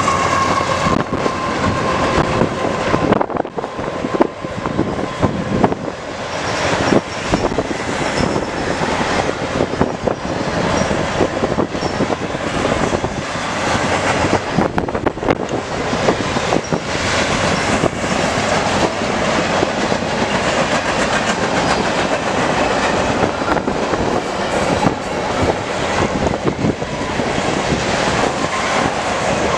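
Canadian Pacific manifest freight train passing close by: a steady rumble of rolling cars, with the wheels clicking and clacking over the rail joints throughout.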